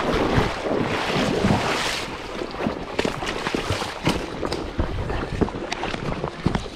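River water splashing and rushing around a wading angler, with wind buffeting the microphone. Scattered sharp clicks and knocks start about two seconds in.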